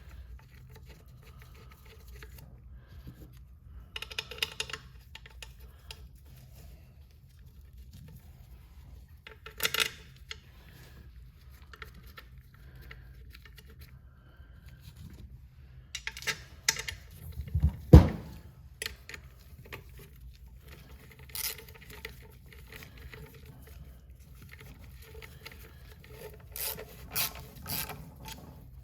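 Metal parts and hand tools clinking, scraping and rubbing as a turbocharger's front cover is bolted back on, in scattered small clicks, with one sharp knock about two-thirds of the way in.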